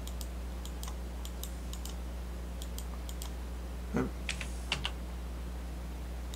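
Computer keyboard keys tapped in quick spurts of clicks, with a pause in the middle, over a steady low hum.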